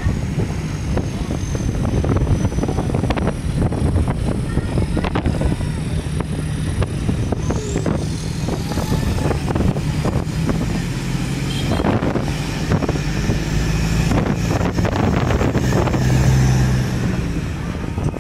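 Safari jeep's engine running steadily while driving, with frequent knocks and rattles from the vehicle.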